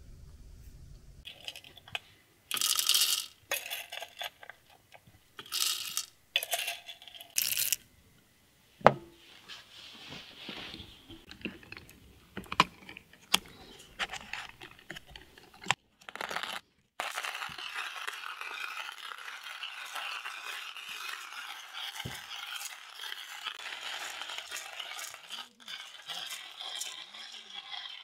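Clinks and knocks of metal kitchenware being handled, with short rustling bursts. About halfway through, a steady crackling hiss sets in.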